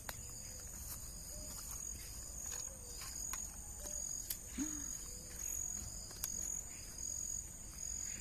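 Insects chirping steadily at a high pitch, their trill pulsing on and off in a repeating pattern, with a few sharp clicks.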